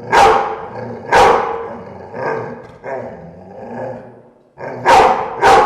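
Dogs growling and barking aggressively in a room, in a run of sharp barks and snarls with growling between them. Two loud barks come about a second apart at the start, softer snarls follow, and two more loud barks come near the end.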